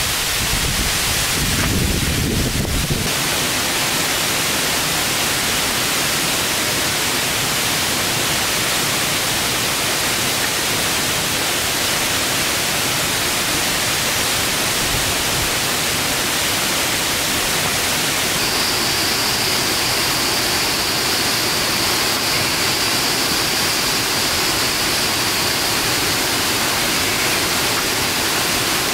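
Steady hiss of water, with wind buffeting the microphone in the first few seconds; a faint, steady high tone joins about two-thirds of the way through.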